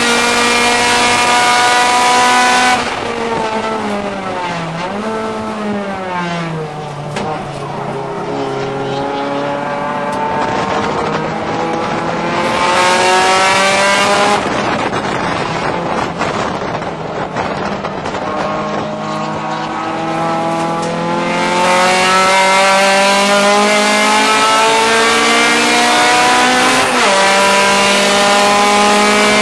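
Honda Civic race car's engine heard from inside the cabin, revving hard at first, then falling in pitch as the driver lifts off a few seconds in. It climbs again under acceleration, with a sudden drop and fresh climb near the end, the sound of an upshift.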